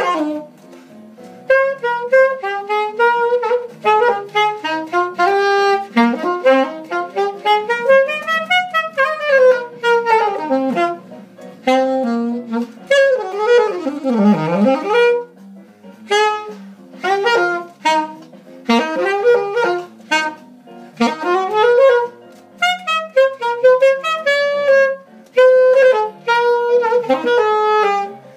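Unaccompanied alto saxophone improvising jazz: quick runs of notes in phrases broken by short pauses for breath, with one deep swoop down and back up in pitch about halfway through.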